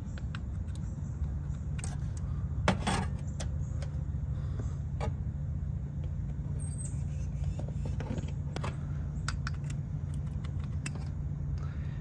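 Small irregular clicks and scrapes of needle-nose pliers working spade connectors on and off the terminals of an AC condenser's dual run capacitor, over a steady low hum.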